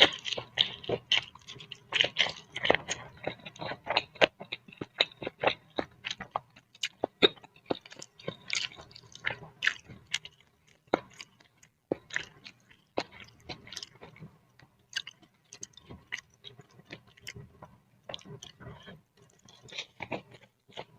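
Close-miked chewing of boiled instant noodles and soft-cooked egg: wet mouth sounds with many quick, irregular clicks of the lips and tongue.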